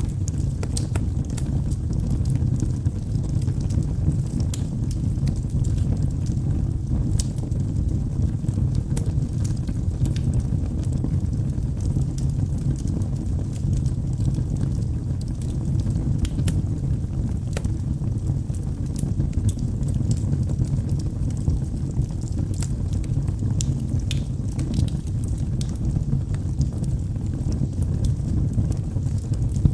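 Log fire burning in a fireplace: a steady low rumble of flames with frequent small crackles and pops throughout.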